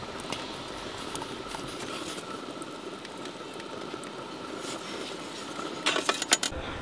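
Wood fire burning in a Skillcraft Vulcan pizza oven, a steady hiss with scattered small crackles. About six seconds in, a quick run of metal clanks as the oven's steel door is set over the mouth.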